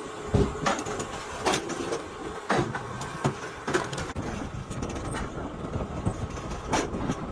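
Mechanical log splitter running with a steady hum, broken by irregular sharp knocks and cracks about once a second as the shaft drives logs onto the blade.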